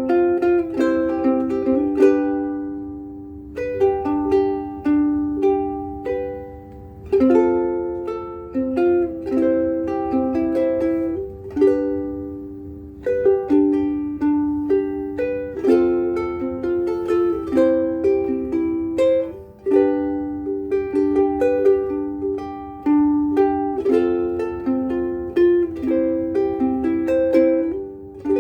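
Famous FN-180 all-solid-mahogany soprano ukulele played as a sound sample: a run of picked notes and chords, each struck and left ringing, in phrases with short pauses. It is strung with worn-out Uke Logic Pink strings, notched from heavy playing.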